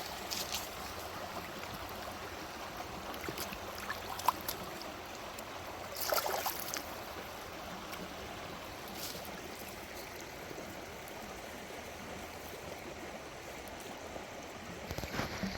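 Morgan Run, a small stream, running steadily with an even rush of water, with a brief louder noisy burst about six seconds in.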